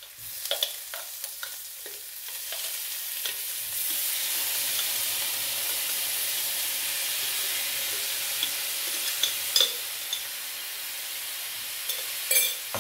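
Kimchi is tipped into a hot frying pan of melted vegan butter with onion, ginger and garlic. The pan sizzles louder from about three seconds in and keeps up a steady frying hiss. A few light clicks and knocks of the jar and utensils sound early on, again near the middle, and shortly before the end.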